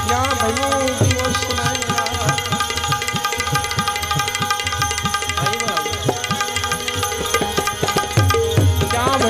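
Live Gujarati devotional folk music: a harmonium playing steady held notes over a quick hand-drum beat, with a man's singing voice rising and falling near the start and again near the end.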